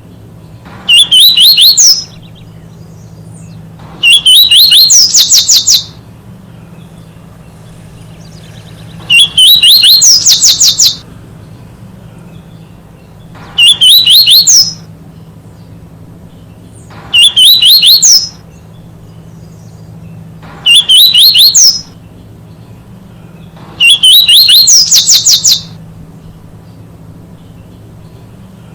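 Double-collared seedeater (coleirinha) singing: seven loud song phrases of rapid, high twittering notes, each lasting one to two seconds and rising in pitch, repeated every three to four seconds.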